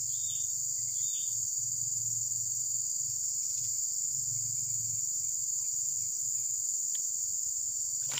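Steady high-pitched insect chorus, a continuous drone that runs on without a break.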